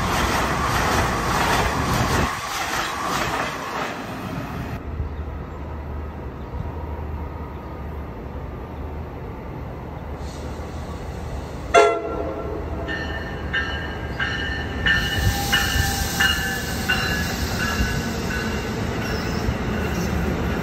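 An Amtrak train passes at speed, a loud rush of wheels and air that dies away about four seconds in. About twelve seconds in, an approaching NJ Transit train gives one short horn blast. Its bell then rings steadily, a little under twice a second, as the train comes closer.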